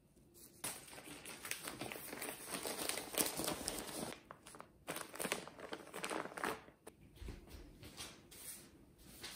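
Chestnut shells being peeled by hand: dry crackling and tearing, dense for the first six seconds or so, then a few scattered crackles.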